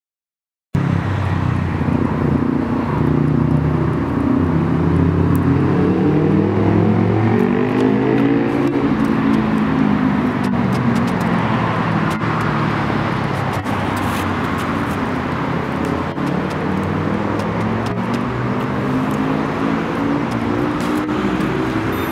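Small DIY quadcopter's four electric motors and propellers running, a multi-toned whine that rises and falls in pitch as the throttle changes.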